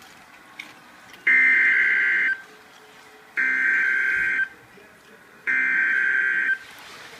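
Three bursts of NOAA Weather Radio SAME data tones, each about a second long with about a second between them: the shrill two-tone digital code that marks an Emergency Alert System message.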